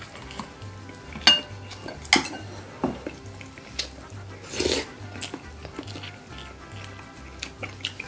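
Eating utensils clinking and knocking against glass rice bowls and a stone stew pot, a few sharp clinks in the first three seconds, over soft background music.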